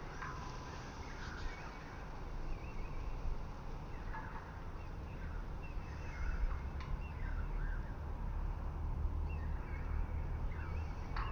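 Birds chirping in short, scattered calls over a low, steady outdoor rumble.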